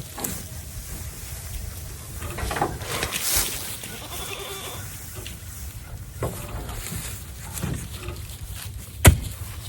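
Farm animals bleating in a barn, one faint call about four seconds in, with rustling throughout and a sharp knock near the end.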